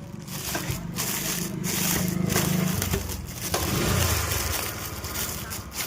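Packaging being handled during an unboxing: steady crackling and rubbing, heaviest in the middle.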